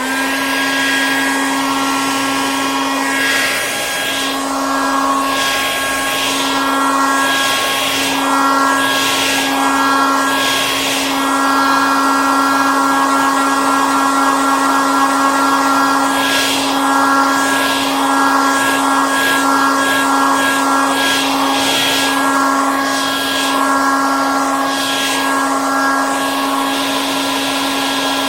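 Hair dryer running steadily: a motor hum with a high whine over rushing air, the air hiss shifting in tone now and then.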